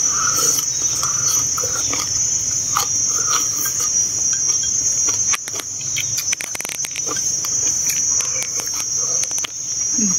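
Steady high-pitched chorus of insects shrilling. Over it, scattered sharp clicks of chopsticks against porcelain rice bowls, bunched together past the middle, and soft eating sounds.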